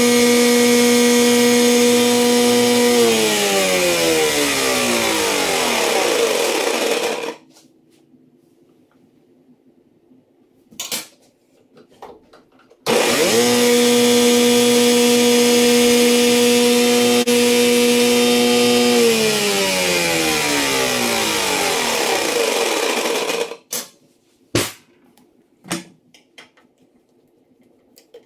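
Jet JWTS-10 table saw running steadily, then switched off and spinning down with a falling pitch for about four seconds. About thirteen seconds in it starts abruptly, runs for about six seconds, and spins down again. A few light knocks follow near the end.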